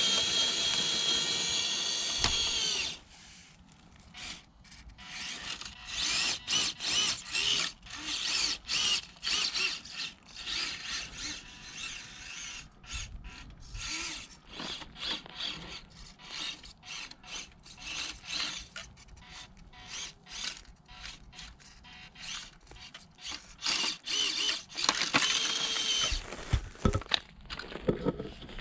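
Orlandoo 1/32 Toyota Tundra micro RC crawler's tiny brushed gear motor and drivetrain whining at a high pitch. The whine holds steady for the first three seconds and again about 25 seconds in. In between it comes in short stop-start bursts with clicks and rattles as the truck crawls over pebbles and stone.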